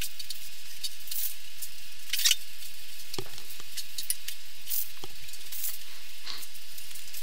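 Aerosol spray paint can hissing in a steady stream, with a few brief louder spurts.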